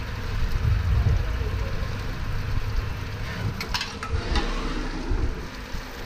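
Automatic drilling and chamfering machine running, with a steady low machine hum under a hiss of spraying coolant. A few short sharp hisses or clicks come about four seconds in.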